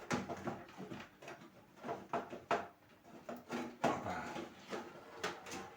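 Irregular knocks, clunks and scraping as a computer power supply unit is worked loose and pulled out of a PC case.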